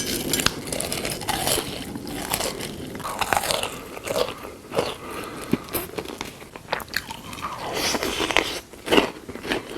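Close-miked biting and crunching of hard moulded chocolate, with chewing between bites.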